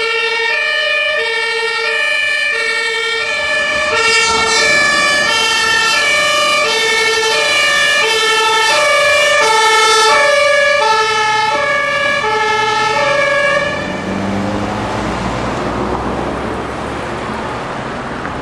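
Two-tone siren (German Martinshorn) of a passing fire-brigade emergency vehicle, alternating between two pitches about every two-thirds of a second. It grows louder as the vehicle goes by, then stops about 14 seconds in, leaving the engine and road noise of passing traffic.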